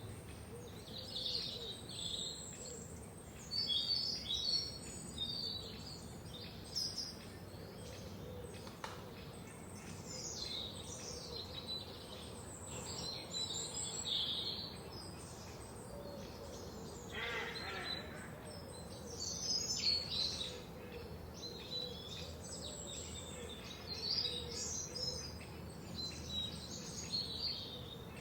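Several songbirds singing and chirping over a steady background hiss, with short trills and calls overlapping throughout.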